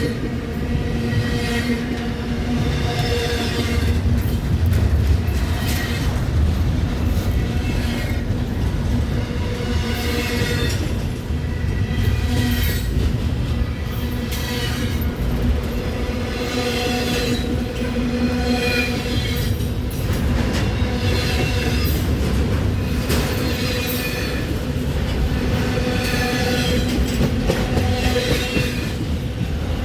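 Freight train rolling past: a steady heavy rumble with wheels squealing and clicking over the rails again and again.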